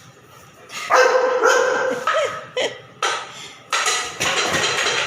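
Dog barking loudly in a series of calls, starting about a second in.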